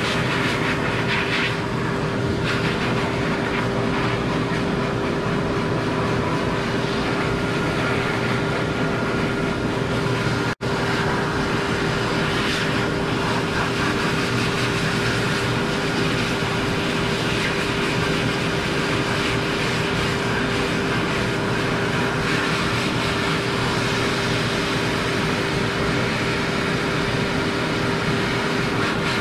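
Dog grooming blower dryer blowing air steadily through its hose: a constant rush of air with a steady motor whine underneath. The sound cuts out for an instant about ten seconds in.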